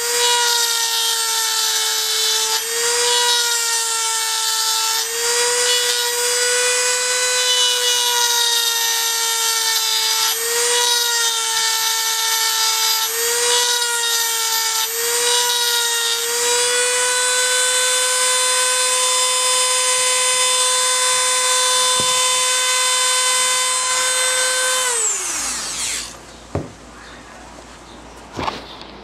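High-speed rotary tool with a pointed grinding stone whining as it grinds burrs off the tooth edges of an NV3500 transmission's helical gear, its pitch dipping briefly each time the stone bites into the metal. About 25 s in the tool is switched off and winds down with a falling whine, followed by two light clicks.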